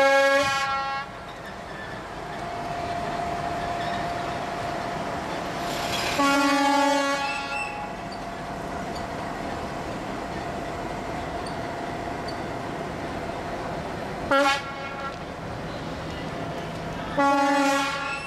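Diesel locomotive horn sounding four blasts: three of about a second each and one very short one about two-thirds of the way through, each a single steady tone. A locomotive engine runs steadily between the blasts.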